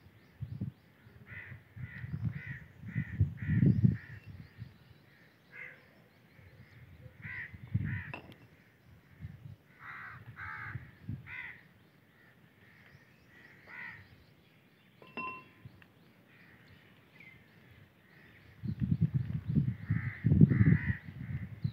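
Crows cawing in repeated runs of short, harsh calls, several a second at times. Twice, about two seconds in and again near the end, loud bursts of low rumbling noise cover the calls.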